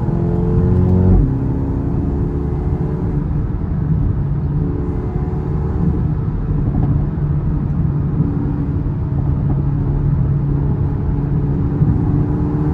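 Mercedes-AMG A35's turbocharged 2.0-litre four-cylinder pulling under acceleration, its pitch rising, then dropping abruptly with a thump about a second in on an upshift. It then runs at lower revs and builds again, rising in pitch, toward the end.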